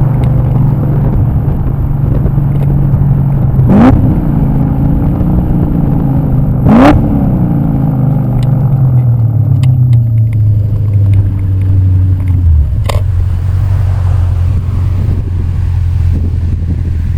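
E39 BMW M5's 4.9-litre V8 running, revved in two quick sharp blips about four and seven seconds in. The engine then settles to a steady low drone, dropping a little lower near the end.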